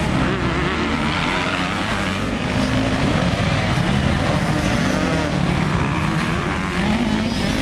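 Several motocross dirt bikes' engines revving together, their pitches rising and falling and overlapping as the riders throttle through a corner.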